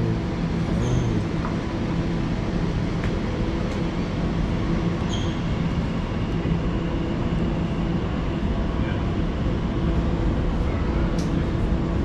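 Elizabeth Line electric train (Class 345) running: a steady rumble and rush of noise with a low hum, and a few faint clicks over it.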